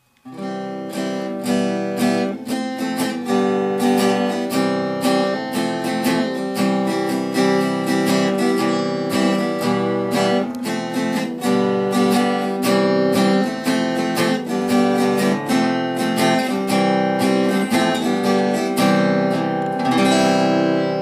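Background music on acoustic guitar: a steady run of plucked notes.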